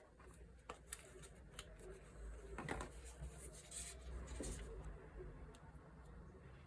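Faint scattered taps, scrapes and rustles of packaging being handled, a little louder about three seconds in.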